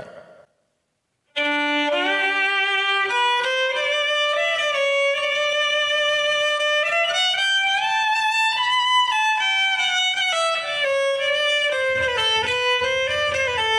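Violin bowed in a slow melody of sustained notes that starts about a second in, climbs, then falls back. Its fine tuners are removed so the strings run straight to the tailpiece, which the player says makes the tone softer.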